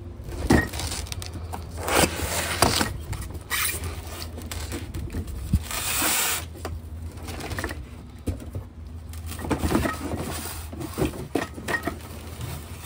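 A cardboard box and its styrofoam packing being handled: irregular rustles, scrapes and knocks as the styrofoam insert is slid out of the box and set down on concrete, with a longer scraping rush about halfway through.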